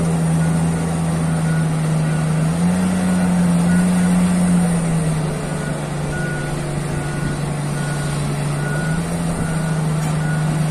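Large Komatsu PC2000-7 mining excavator running: its diesel engine drones steadily, the pitch stepping up and down between two speeds several times. Through it, a short high warning beep repeats about once every two-thirds of a second, in spells.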